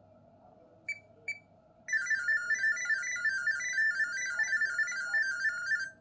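LG refrigerator's Smart Diagnosis signal: two short beeps about a second in, then about four seconds of rapid, warbling electronic tones that stop abruptly. This is the fridge sending its diagnostic data as sound for the ThinQ phone app to decode.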